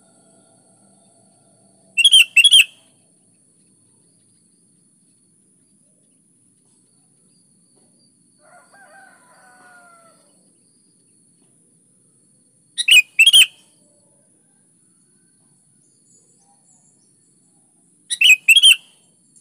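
Sooty-headed bulbul (kutilang) calling in three short bursts, each a quick run of a few bright notes, with long gaps between them.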